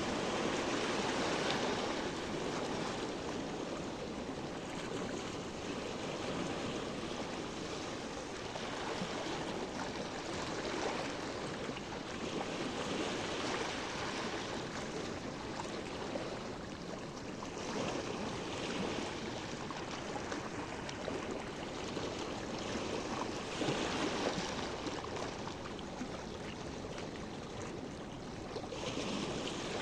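Sea water washing and lapping in a steady hiss, swelling and easing every few seconds.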